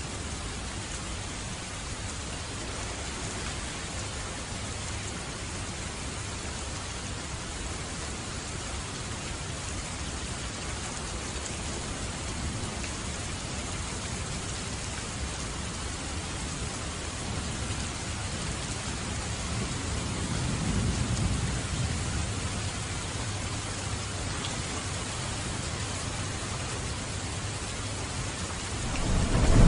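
Steady rain falling, with a low roll of thunder swelling up about two-thirds of the way through and a louder thunder rumble breaking in right at the end.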